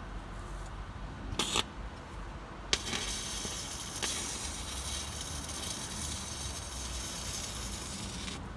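Stick welding arc: a short sputter, then the arc lights and crackles and hisses steadily, breaking off near the end.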